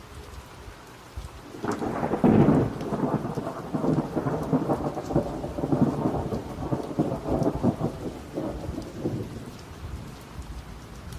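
Thunder breaking about two seconds in and rolling on for several seconds before fading, over steady rain.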